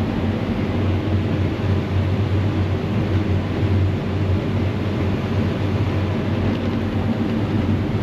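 Combine harvester running under heavy load while cutting corn, heard from inside the cab: a steady low engine and threshing drone. It is unloading corn on the go through its auger.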